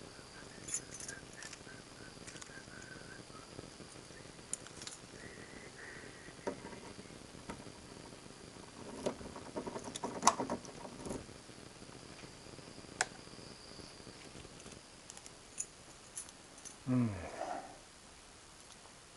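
Scattered light clicks and knocks of objects being handled, loudest a little after the middle, over a faint steady high-pitched insect trill. Near the end comes a short low hum that falls in pitch.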